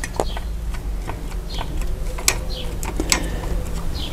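Sharp, irregular metallic clicks and taps from a bicycle rim brake's arm and brake shoe being handled and pressed against the wheel rim during adjustment.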